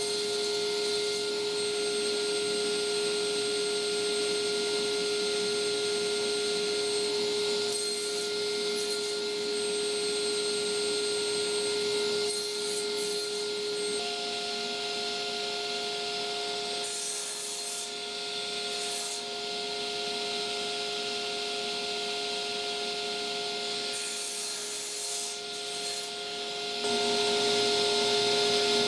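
Table saw running with a steady whine while a piece of wood is turned on a circle jig's pin against the blade, trimming it round with a continuous rasping cut. The tone changes about halfway through and the sound grows louder near the end.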